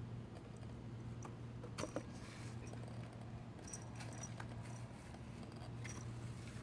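Cat playing in paper bags and a cardboard box: scattered light rustles, scratches and ticks, with a louder rustle about two seconds in, over a steady low hum.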